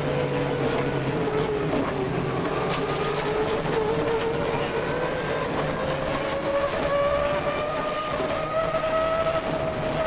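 Subaru Impreza 555 Group A rally car's turbocharged flat-four engine heard from inside the cabin at speed. The revs drop about two seconds in, then climb steadily as the car pulls through the gear, with scattered clicks underneath.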